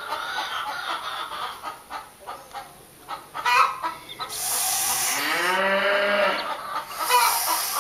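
White domestic goose calling loudly with its bill wide open, a long call with wavering pitch about four seconds in, after a run of shorter calls. A chick peeps softly nearby.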